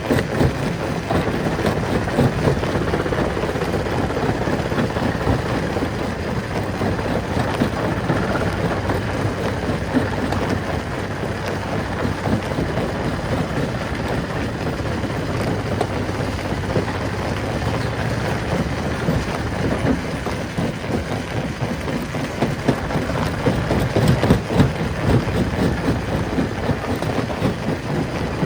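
Rock crushing machine running, a steady dense mechanical noise with constant rattling and knocking of stone.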